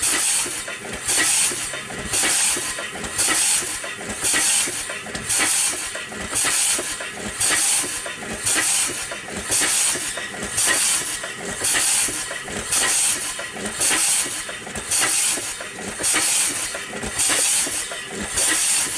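1880 Payne & Son horizontal steam engine running on steam, chuffing its exhaust in an even rhythm of hissing puffs. Under the puffs is a steady steam hiss from the piston-rod packing gland, which is leaking badly.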